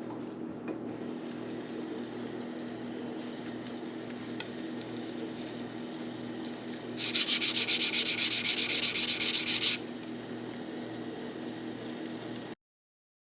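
Yanagiba blade rubbed in quick back-and-forth strokes on a 400-grit whetstone, a loud burst of scraping in the middle lasting about three seconds, under a steady low hum. The sound cuts off abruptly near the end.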